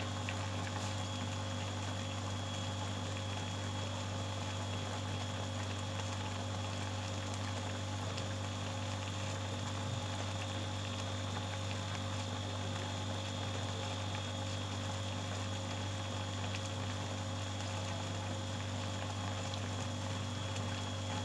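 Liquid simmering in a metal wok around a whole fish, with faint bubbling over a steady low hum.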